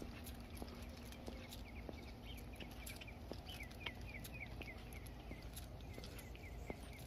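Faint footsteps walking on a paved path over a low rumble. A bird calls in a quick run of short, falling chirps through the middle of the stretch.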